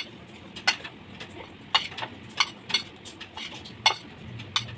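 A spoon stirring boiled sweet corn kernels and spice powders in a bowl, clinking against the bowl in irregular clicks about twice a second.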